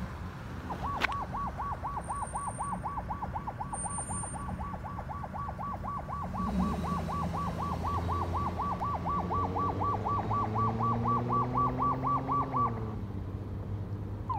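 Fire engine's electronic siren in fast yelp mode, about four rapid up-and-down sweeps a second, cutting off about 13 seconds in. Under it the truck's engine grows louder as it approaches, its pitch rising as it accelerates and then dropping just before the siren stops.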